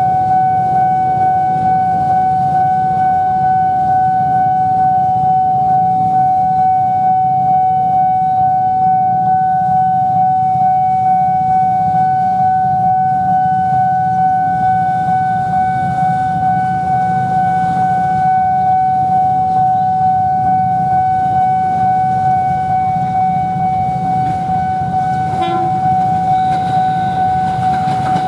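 Railway level-crossing alarm sounding one continuous high tone, over a steady low rumble as a KRL Commuter Line electric train approaches.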